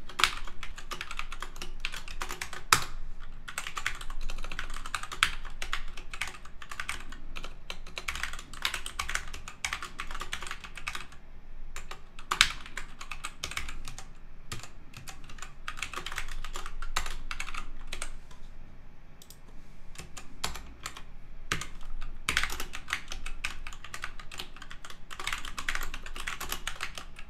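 Typing on a computer keyboard: quick runs of key clicks with a couple of short pauses, one about midway and a longer one a little later.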